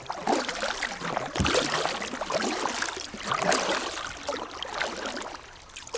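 Kayak paddle strokes dipping and splashing irregularly in a shallow, moving river, with a low thump about a second and a half in.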